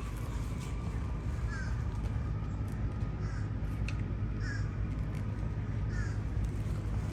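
A crow cawing, short calls repeated about every second and a half, over a steady low rumble.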